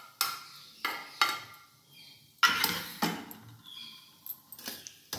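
A metal spoon clinking and scraping against a cooking pot and a glass bowl as fried cashews and raisins are transferred, as a series of separate sharp knocks with short ringing, the loudest about two and a half seconds in.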